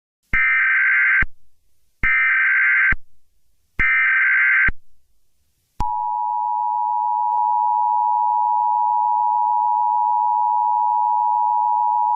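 Emergency Alert System tones: three short data bursts of the SAME header, each just under a second with short gaps between them, then the steady two-tone EAS attention signal starting about six seconds in and held on.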